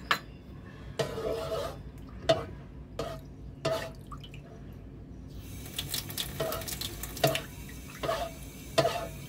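Plastic rice paddle stirring a pot of watery liquid in a rice cooker's inner pot: repeated sloshing strokes, settling into a steady rhythm of a little more than one a second in the second half. The liquid is being stirred so the salt in it dissolves.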